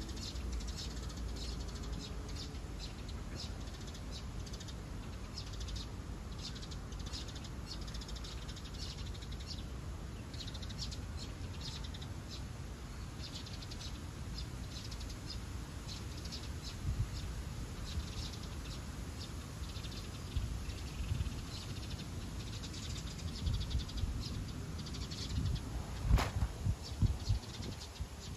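Small birds chirping over and over, short high notes, above a steady low rumble. In the last few seconds come a run of louder thumps and one sharp click.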